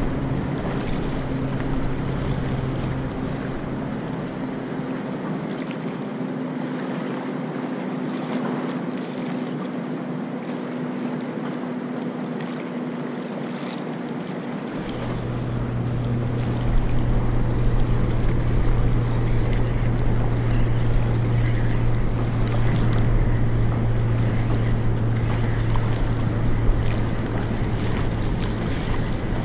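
A steady low engine drone, holding one pitch, that grows louder about halfway through, over wind noise on the microphone.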